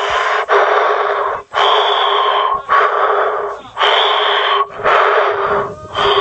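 Loud breathing amplified through a handheld megaphone: about six breaths in a steady rhythm, roughly one a second, each cut sharply by short gaps. The megaphone gives the breaths a narrow, tinny tone.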